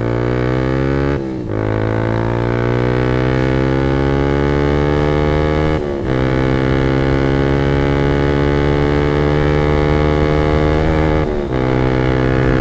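Yamaha R15 V2's single-cylinder engine through a short Pro Liner racing exhaust, accelerating hard at full throttle. The note climbs steadily in each gear, with three brief dips as it is shifted up: about a second in, about halfway, and near the end.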